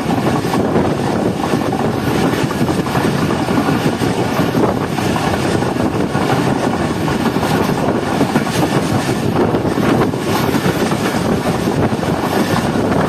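Passenger coach wheels running on the rails at about 70 km/h, heard from an open coach window: a loud, steady rumble of the moving train as it gathers speed.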